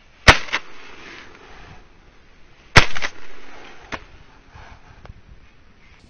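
Two loud shotgun shots about two and a half seconds apart, each trailing off briefly.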